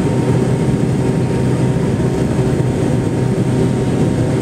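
Steady cabin drone of a McDonnell Douglas MD-80 airliner, heard from inside the cabin, with its rear-mounted Pratt & Whitney JT8D turbofans running and a low, constant hum underneath.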